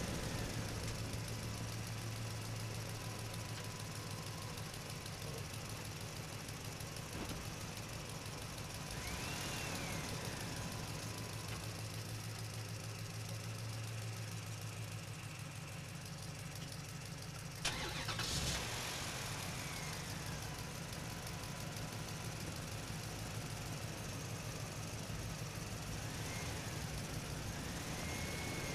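Engine running steadily with a low hum, with a few short whines that rise and fall in pitch and one sharp click a little past halfway.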